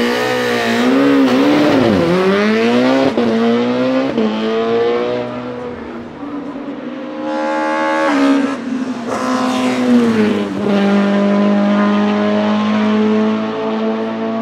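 BMW E36 STW race car's 2.0-litre S42B20 four-cylinder engine with individual throttle bodies, blipped up and down at first, then accelerating hard with the pitch climbing through the gears. It is loudest as the car passes close by about ten seconds in, and settles to a steadier note near the end.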